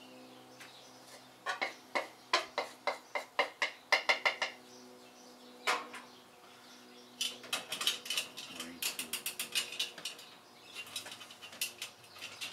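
Metal cooking utensil clattering against cookware while stir-fry is dished up. A run of sharp taps comes first, then a single knock, then faster clatter over the last few seconds.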